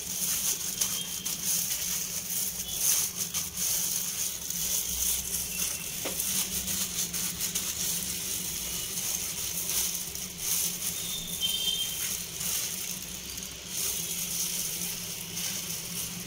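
Plastic-gloved hand pressing and rubbing a chicken piece in a bowl of dry flour, making a continuous crackly rustle of glove and flour.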